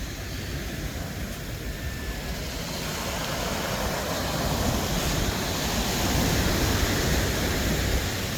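Steady rushing of wind and surf at the shore, rumbling in the lows and growing somewhat louder about halfway through.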